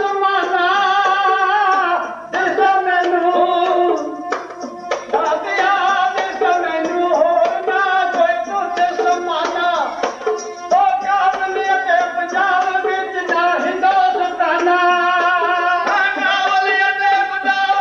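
Dhadi singing: a Punjabi Sikh devotional song sung in phrases with wavering, ornamented pitch, accompanied by the dhadd hand drum and sarangi.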